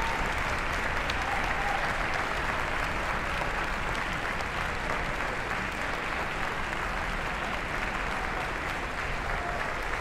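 Audience and orchestra applauding, a steady continuous clapping in a concert hall.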